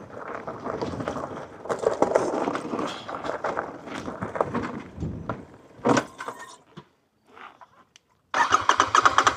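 Rough rattling noise for the first half, then near the end a Royal Enfield Super Meteor 650's parallel-twin engine being cranked on the electric starter for about two seconds in fast, even pulses, without firing: the stalled engine won't restart even though the battery has plenty of charge.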